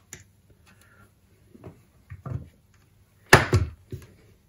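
Small handling clicks of hands working a cable on a wooden board, then a louder short clatter about three seconds in as a Stanley knife is put down on the board.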